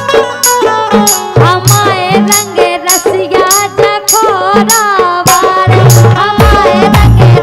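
Live Rai folk song: a woman singing with a gliding, ornamented melody over steady harmonium chords and a regular sharp percussion beat. Heavy low drum beats come in about six seconds in.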